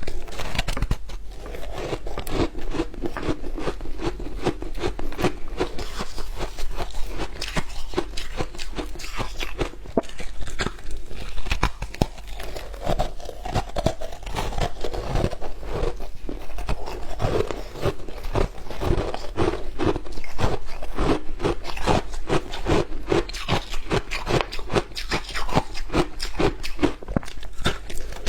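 A person biting and chewing frozen matcha ice: a dense, continuous run of sharp cracks and crunches as the ice breaks between the teeth.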